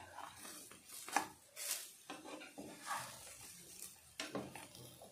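Wooden spatula scraping and knocking against a nonstick frying pan while turning over pan-fried dumplings, several irregular scrapes and taps.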